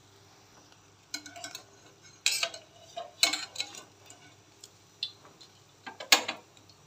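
Wire spider skimmer and tongs clinking against a stainless-steel frying pan as fried pieces are lifted from the oil: a handful of short, sharp metal clicks, the loudest about six seconds in.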